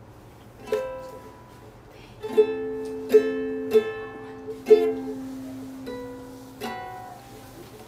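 Ukulele strummed slowly, about seven separate chords at uneven gaps, each left to ring out. The player is picking her way through a half-remembered song.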